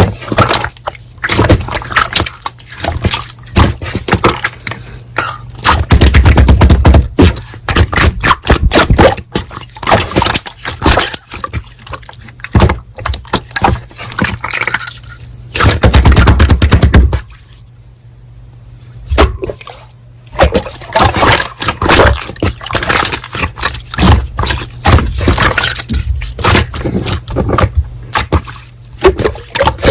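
Slime being squeezed and poked by hand, making rapid wet clicks and pops, with two denser, louder runs of crackling a third of the way in and again near the middle.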